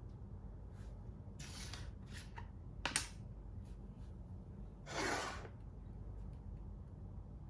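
Makruk (Thai chess) pieces being handled and moved on the board: a few short rustles and one sharp click about three seconds in, as a piece is set down.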